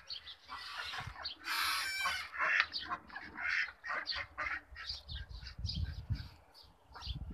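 Backyard chickens and ducks calling, a steady run of short, repeated chirps and clucks. A brief rustling rush comes about one and a half seconds in.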